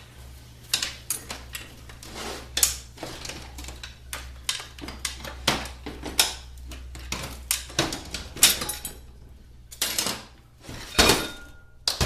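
Metal parts of a 4L60E automatic transmission being handled as the forward clutch assembly is pulled out and taken apart: irregular clinks and knocks of metal on metal, several to a second at times, with a few louder clanks near the end.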